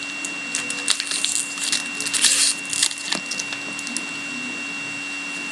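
Foil wrapper of a hockey card pack crinkling as it is torn open, and cards being handled, in short crackly bursts with a few clicks.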